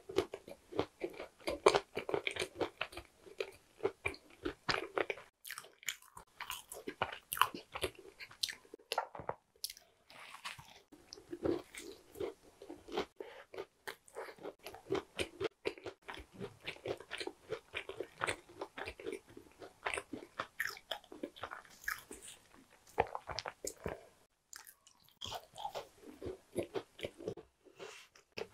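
Close-miked chewing of tart, crisp pastry crust crunching in dense runs with a few brief pauses.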